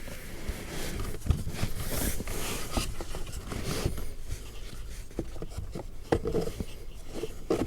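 New cabin air filter being slid into its plastic housing and the cover refitted: irregular rubbing, scraping and small plastic clicks and knocks.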